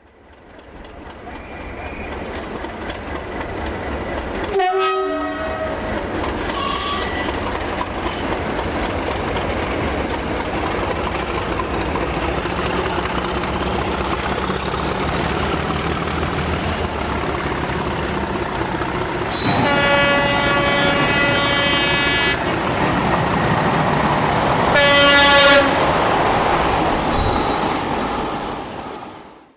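A train running on the line with a steady rumble, fading in at the start and out at the end. A horn sounds twice: a blast of about three seconds roughly two-thirds of the way in, then a shorter, louder one a few seconds later.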